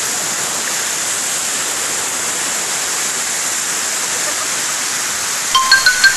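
Waterfall rushing, a steady even hiss of falling water. Near the end a few short, bright musical notes come in.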